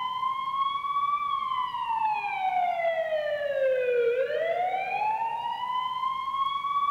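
A recorded ambulance siren wailing. The pitch rises for about a second, falls steadily for about three seconds, then rises again. It is the unprocessed original sample, with no Doppler pitch shift applied.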